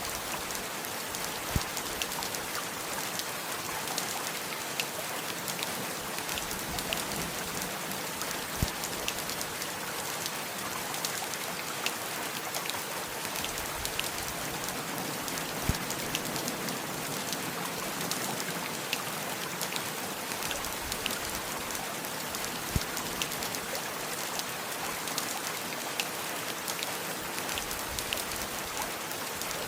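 Steady rain, a dense hiss of drops with many small sharp pattering hits, and a louder single drip about every seven seconds.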